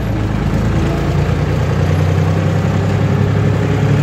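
Red farm tractor's diesel engine running steadily under way, heard from inside the cab.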